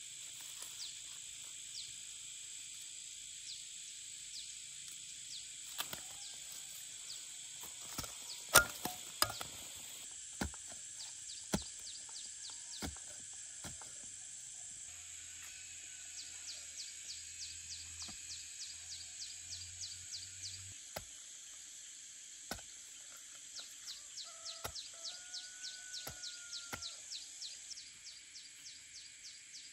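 Insects chirping steadily in fast, even pulses, with several sharp knocks and snaps from hand work in the soil in the first half, the loudest about nine seconds in. A few faint bird calls come through later on.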